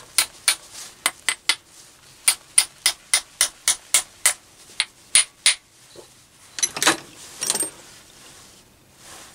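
Copper mallet tapping a locating pin home into a steel base plate: a quick run of about fifteen light, ringing taps, two or three a second, stopping after about five and a half seconds. A brief handling clatter follows about a second later.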